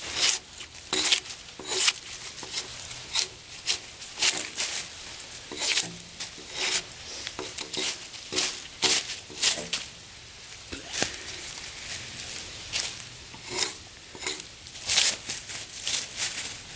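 Drawknife peeling bark off a freshly felled log: a run of short scraping, tearing strokes, irregular, about one or two a second, as strips of bark come away.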